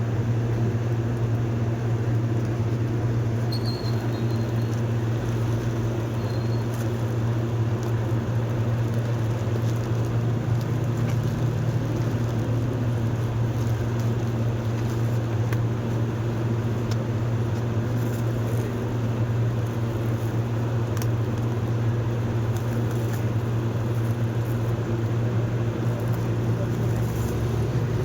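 Steady low hum of a running motor or engine, unchanging in pitch and level, with a faint noisy patter and scattered light clicks over it.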